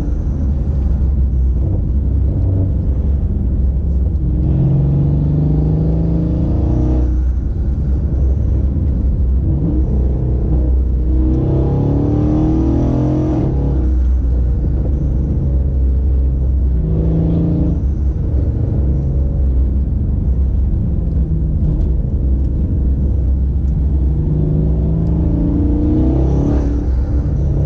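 Tuned Mercedes-AMG 5.8-litre twin-turbo V8 heard from inside the cabin under repeated acceleration. Its note climbs in pitch in several pulls, each one breaking off abruptly, over a constant low road rumble.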